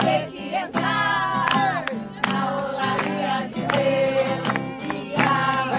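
A group of people singing a Christian chorus together, several voices over a regular beat of sharp strikes.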